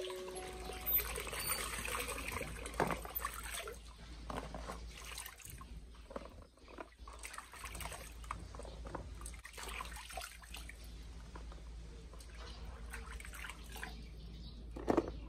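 Water trickling and splashing during kitchen work, broken by scattered light knocks and clicks, with a sharper knock near the end.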